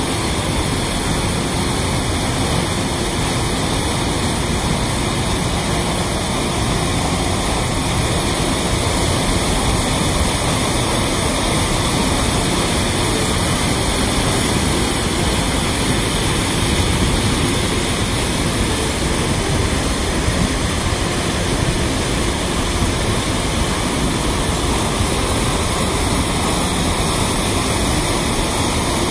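Water of a waterfall rushing steadily over rocks, a continuous even rush with no breaks.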